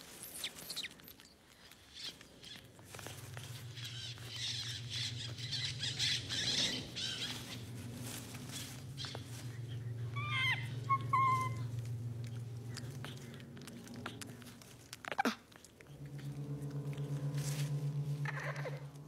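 A young capuchin monkey gives a few short, high, squeaky chirps about ten seconds in, over a low steady hum that turns into a throbbing hum near the end.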